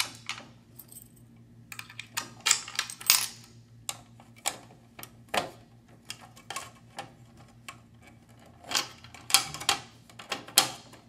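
DVR lid being lined up and seated on the case, knocking against it: a string of irregular sharp clicks and taps.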